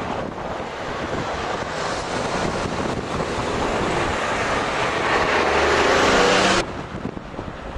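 A motor vehicle's engine and road noise building up, mixed with wind buffeting the microphone, then cutting off abruptly about six and a half seconds in.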